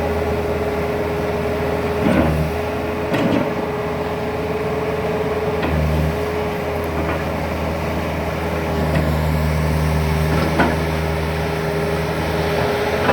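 Turbo diesel engine of a 2004 Bobcat T190 Turbo tracked skid steer running steadily, with a constant whine. Its note shifts with load a few times, and there are several short clunks.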